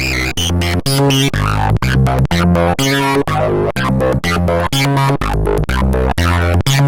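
Animoog Z synthesizer playing a preset: a rhythmic sequence of short, bass-heavy notes, about two a second, with brighter tones layered above.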